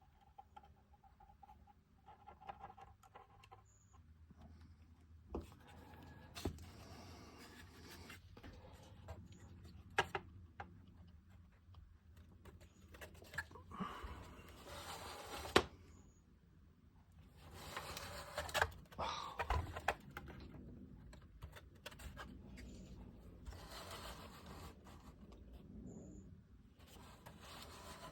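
Quiet handling noises of small model-boat parts being fitted and glued onto the deck: scattered light taps and clicks with a few stretches of soft rustling.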